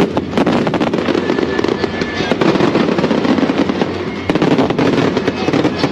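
Daytime colored-smoke fireworks firing in rapid volleys: a dense, irregular run of pops and bangs, with music playing underneath.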